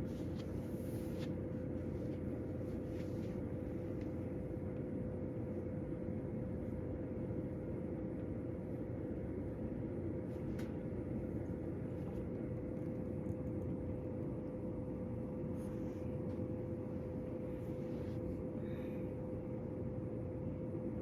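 A space heater running with a steady hum and a constant mid-pitched tone. A few faint, brief clicks sound over it.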